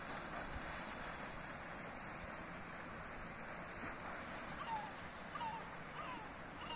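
Seaside cliff-top ambience: a steady wash of wind and sea. Over it, a short high pulsed trill repeats every few seconds, and from about halfway a bird gives a quick series of short falling chirps.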